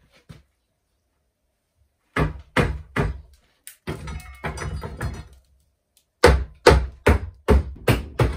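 Hammer blows on a built-in wooden cupboard being knocked apart: three strikes, a second or so of rough creaking and scraping of the wood, then a quicker run of about six blows, roughly two or three a second, near the end.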